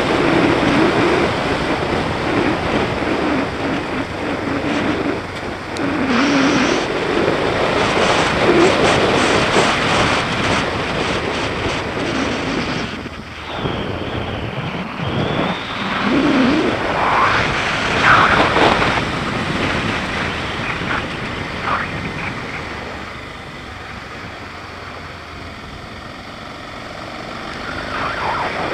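BMW G650GS single-cylinder engine running while riding, mixed with heavy wind and road rush on the microphone. The engine note rises and falls a few times midway, and everything drops quieter for a few seconds near the end.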